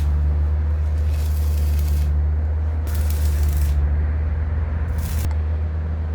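Welding in short bursts of about a second, each a crackling hiss, four times, over a steady low hum.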